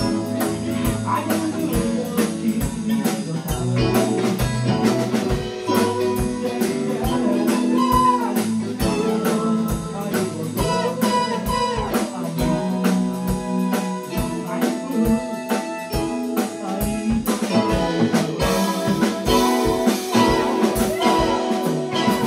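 Small live band playing a bluesy number: a drum kit keeping a steady beat under electric guitar, keyboard and saxophone.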